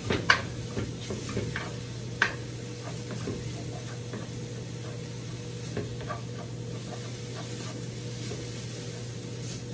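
Chopped pork sizzling in a nonstick frying pan while a wooden spatula stirs and scrapes it. There are scattered sharp knocks of the spatula against the pan, loudest about a third of a second in and just after two seconds, over a steady low hum.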